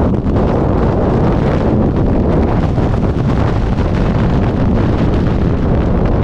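Wind from freefall rushing over the microphone of a skydiver's helmet-mounted camera: a loud, steady roar with no breaks.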